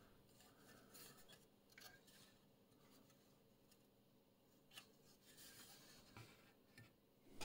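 Near silence, with a few faint rubs and light clicks of a circuit board being handled in the fingers.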